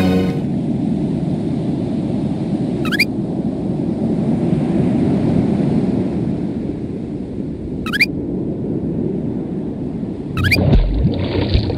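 Cartoon ocean-wave sound effect: a steady rushing of surf, surging louder with a low thump near the end. Three short rising chirps cut in over it, about 3, 8 and 10.5 seconds in.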